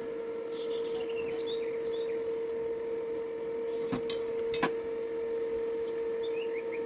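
A steady electrical hum, with birds chirping briefly about half a second in and again near the end, and two sharp clicks around the middle.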